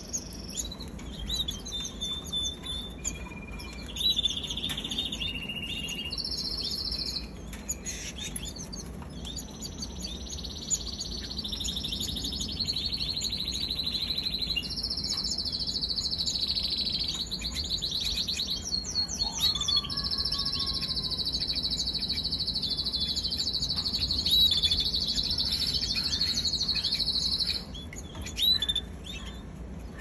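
Domestic canary singing a long, continuous song of rapid trills and rolls, one repeated-note phrase after another, high-pitched. A long held roll in the latter half breaks off a couple of seconds before the end.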